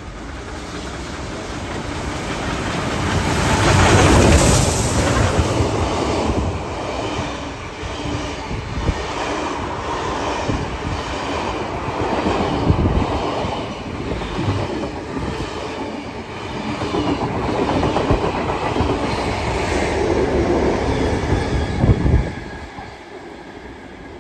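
Train led by Beyer-Garratt steam locomotive 6029 running past at close range, loudest as the locomotive goes by about four seconds in. Its heritage carriages follow with a steady clickety-clack of wheels over rail joints and some wheel squeal. The sound drops suddenly a couple of seconds before the end.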